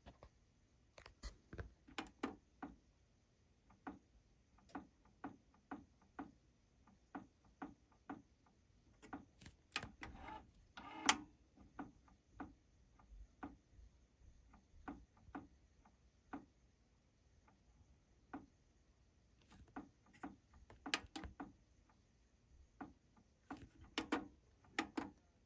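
Faint, irregular mechanical clicks and ticks from the right-hand deck of a Technics RS-TR373 dual cassette deck, the deck with the reported fault, coming roughly once or twice a second, with a denser run of scratchy clicks about ten seconds in and another cluster near the end.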